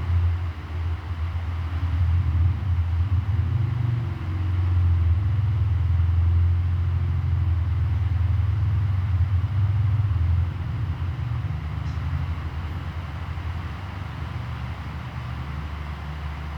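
Classic electric fan running steadily: a low motor hum under the even rush of air from the blades. The sound grows slightly softer about ten seconds in.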